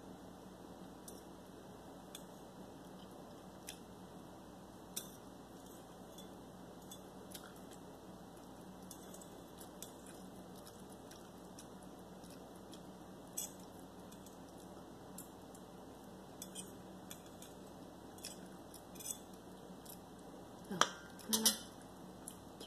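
Metal fork scraping and clicking against a ceramic plate while picking up the last noodles, in scattered light clinks over a faint steady hum. Near the end there is a louder clatter of several clinks as the fork is set down on the plate.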